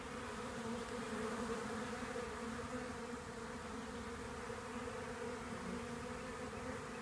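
Many honeybees flying around a newly installed hive, buzzing in a steady, even hum.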